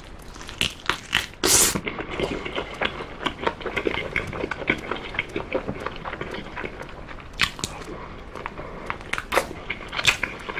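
A person biting into and chewing an oven-baked chicken drumstick close to the microphone, with many small wet clicks of chewing. There is one loud bite about a second and a half in.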